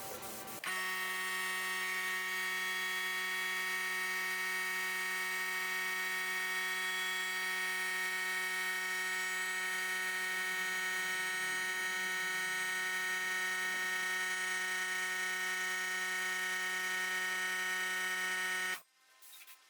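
An electric power tool's motor running at one steady speed, a constant high whine made of many even tones. It starts abruptly about a second in and cuts off abruptly near the end.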